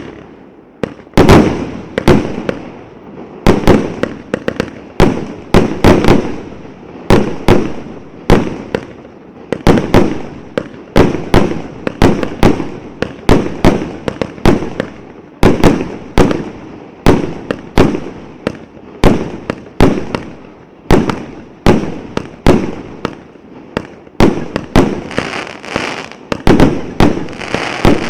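Uralsalut 'S Novym Godom' 120-shot firework battery firing: a steady run of shots and aerial bursts, about one or two a second, with a crackling hiss building in the last few seconds.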